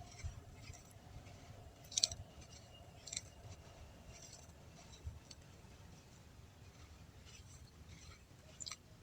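Crisp crunching and crackling of something dry being crumbled, in scattered short bursts; the loudest come about two seconds in and just after three seconds, with another near the end.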